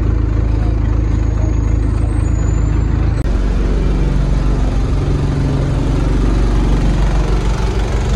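Diesel engine of an ADL Enviro200 single-deck bus running with a steady low hum. About three seconds in the sound cuts abruptly from the street to inside the bus, where the engine idles on.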